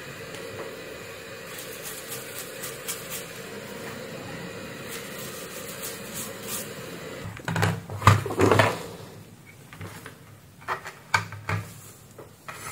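A steady hiss, then about halfway through a burst of knocks and clatter, followed by a few separate sharp clicks: tools and the repaired router circuit board being handled on a workbench.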